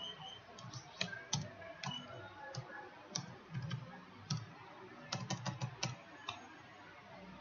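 Computer keyboard keys being typed, a line of short irregular keystrokes with a quicker run of clicks near the end, stopping about six seconds in.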